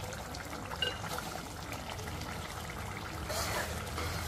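Thick chana dal gravy bubbling and sizzling in an aluminium pot as a ladle stirs it, its excess water cooked off. The sound is a steady, even noise.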